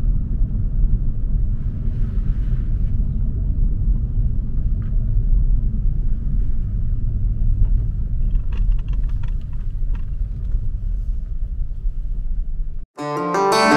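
Steady low rumble of a car, heard from inside it, with a few faint light clicks partway through. Near the end it cuts off abruptly and strummed acoustic guitar music starts.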